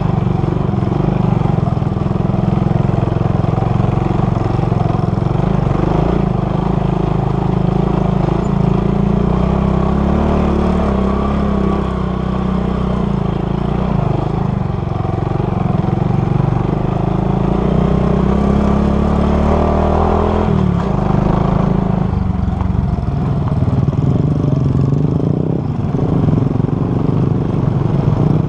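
Motorcycle engine running under load on a climbing ride, its note rising and falling with the throttle and dropping sharply about two-thirds of the way through.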